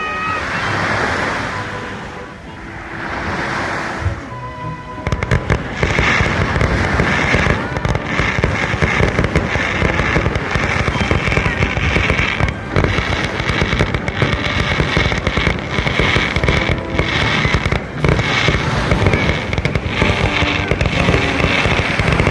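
Fireworks display: a few seconds of swelling and fading rushing noise, then from about five seconds in a loud, dense barrage of crackling and popping bursts that keeps going without a break.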